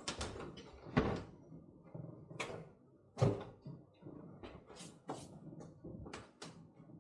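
Red spatula working thick, sticky soda bread dough in a ceramic mixing bowl: irregular scrapes and clacks of the spatula against the bowl, with the bowl knocking on the wooden worktop, the loudest knocks about a second in and just after three seconds.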